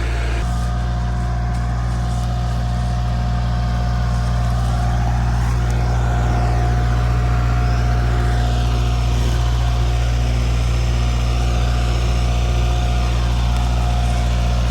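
Tractor engine running steadily at idle, a deep, even hum, with a faint whine that rises and falls partway through.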